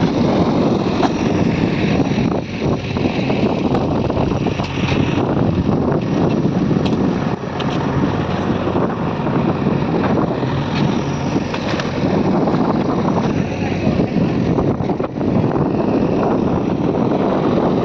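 Diesel engines of a backhoe loader and tractors running steadily under work, with wind noise on the microphone.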